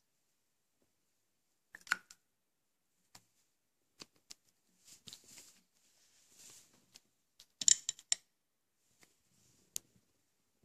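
Small plastic spray tubes and a spray bottle being handled and set down on a plastic tablecloth: scattered clicks and taps with soft rustling in between, loudest in a quick cluster of sharp clicks about eight seconds in.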